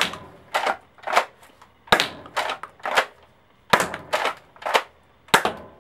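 Nerf Elite Alpha Trooper pump-action blaster being pumped and fired repeatedly: about ten sharp plastic clacks, roughly two a second, in groups of about three with short pauses between.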